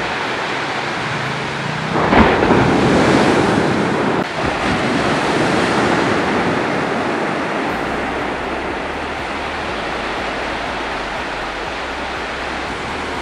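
Ocean surf on a beach: a steady roar of breaking waves, with a larger wave crashing about two seconds in and its wash running on for a few seconds before settling back.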